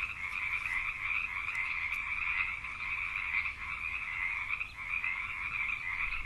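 Frogs calling in a dense, continuous chorus.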